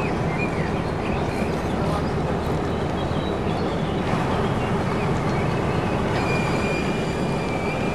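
Diesel engines of truck-mounted mobile cranes running steadily while the cranes hold a tram on their hooks. A thin high whine joins about six seconds in.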